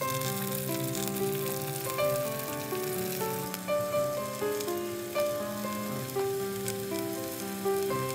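Eggplant slices sizzling as they fry in hot sunflower oil in a large pan, under instrumental background music of held notes that change pitch step by step.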